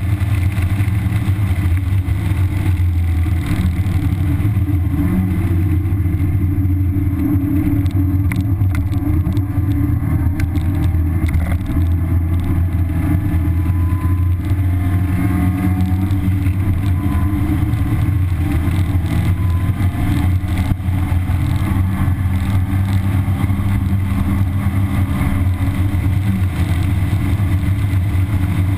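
A 1991 Mazda Miata's 1.6-litre four-cylinder engine with stock exhaust, running at speed on track and heard from inside the cabin, with wind and tyre noise. The engine note rises and falls with the revs, and a few rattles come through from the car over bumps.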